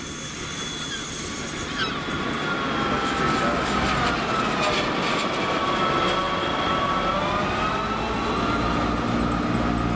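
Great Western Railway Class 158 diesel multiple unit pulling slowly into the platform: a steady rumble of wheels on rail with a high squeal in several tones that slides slightly lower as the train slows, typical of brakes on an arriving train. Near the end a steady low diesel engine hum comes up under it.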